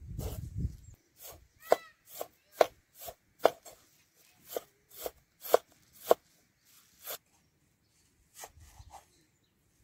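Cleaver chopping green onions on a wooden cutting board: sharp knocks of the blade through the stalks onto the board, about two a second, growing sparser near the end.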